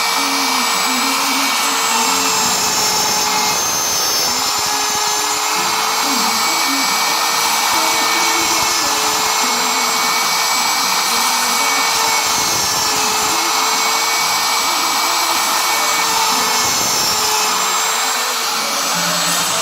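A CNC machine running: a steady motor whine and hiss, with lower tones that keep jumping between pitches as the stepper motors drive the axes at changing speeds.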